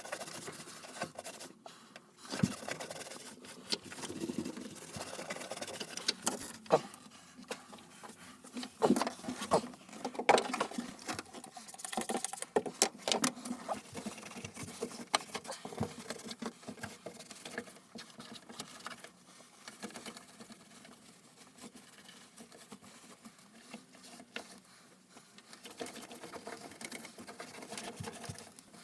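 Irregular light scrapes, taps and clicks of small objects being handled, busier in the first half and thinning out later.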